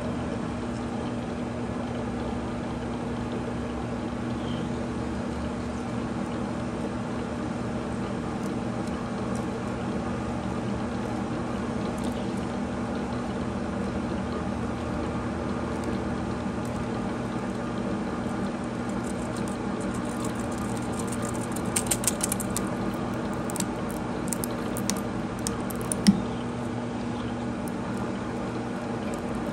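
Metal lathe running steadily, spinning a half-inch stainless steel rod against a corner rounding end mill while cutting oil is brushed on. A few short sharp ticks come in the last third.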